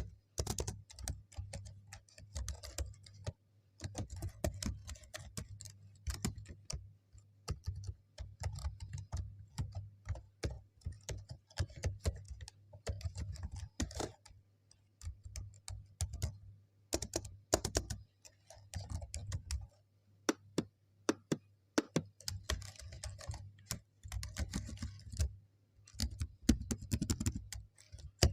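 Typing on a computer keyboard: irregular runs of key clicks in quick bursts, broken by short pauses, over a steady low hum.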